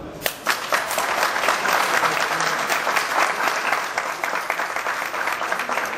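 Audience applauding, many hands clapping at once; it begins right at the start and eases off slightly near the end.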